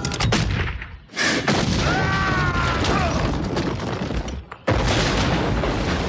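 Cartoon battle sound effects: a sharp blast at the start, then a loud explosion about a second in with a wavering tone that falls away over it, and a second explosion just before five seconds.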